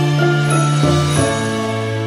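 Background music of held notes that change every half second or so.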